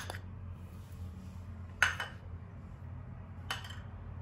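A steel spoon clinks against a bowl twice while khoya is spooned out: a sharp clink a little under two seconds in, and a fainter one about a second and a half later.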